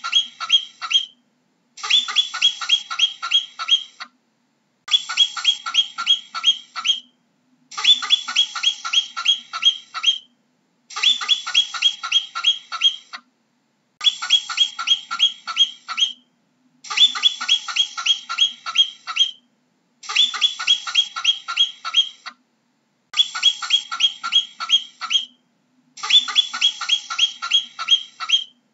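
A marmot calling: bouts of about seven short, sharp, high-pitched calls in quick succession, each bout about two seconds long, repeating about every three seconds.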